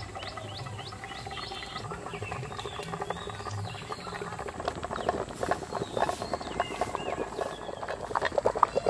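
Water boiling in an iron wok around a lidded steel tin weighted with a stone pestle, a water bath steaming the crab inside the tin. The bubbling is faint at first and turns into a dense crackle about halfway through.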